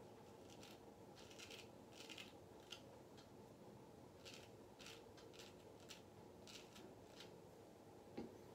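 Dubl Duck Goldedge straight razor scraping through lather and stubble on the cheek: a faint series of short rasping strokes, irregularly spaced.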